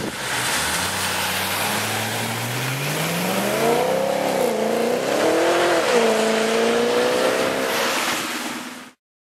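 BMW M3 GTS's 4.4-litre V8 accelerating hard on wet tarmac: the revs climb for about three seconds, then rise and fall unevenly as the rear tyres briefly spin, before settling on a steady note. The sound cuts off suddenly near the end.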